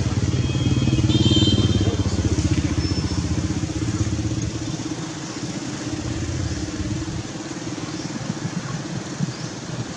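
A motor vehicle engine running or passing, a steady low hum that fades after about five seconds, with a brief high-pitched chirp about a second in.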